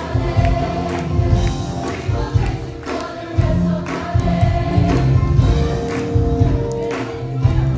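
Mixed choir of young women and men singing a gospel song in held notes, over a bass-heavy accompaniment with a regular beat.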